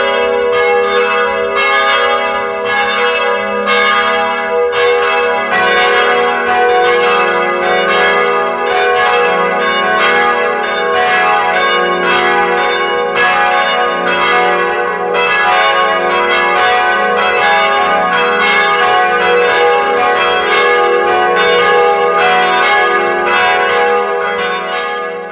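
Church bells ringing in a continuous peal, about two to three strikes a second, each ringing on into the next.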